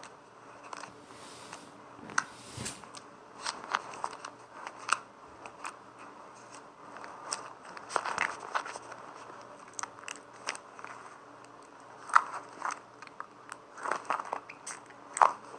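Homemade glue slime squeezed and stretched by hand, giving irregular small pops, clicks and crackles.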